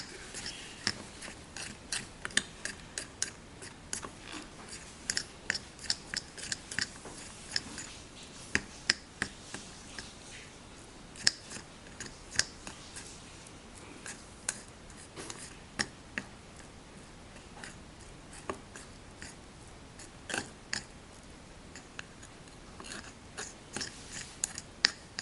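Irregular sharp small clicks and taps, sometimes several in quick succession with gaps between.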